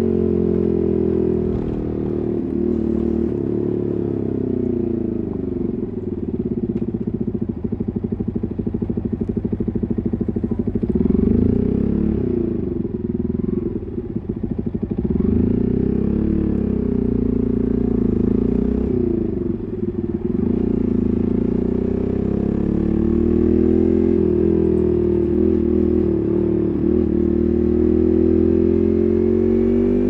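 Yamaha MT15's single-cylinder engine through an SC Project full-system exhaust, ridden in city traffic. The exhaust note rises and falls several times as the rider opens and closes the throttle, with a fast pulsing putter at low revs.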